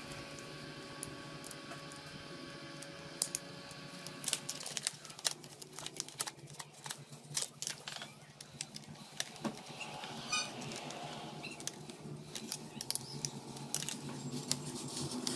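Many light, irregular clicks and taps from hands working on a Dell laptop, much like typing on its keys.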